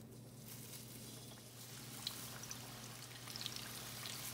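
Floured chicken wings being lowered one by one into hot oil in a stainless steel frying pan: a faint sizzle that builds up, with a few crackles from about two seconds in.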